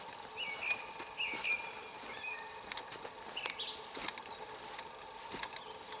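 A songbird singing: a few short whistled notes, then a rising phrase about halfway through. Sharp clicks and cracks of footsteps on the forest floor sound throughout.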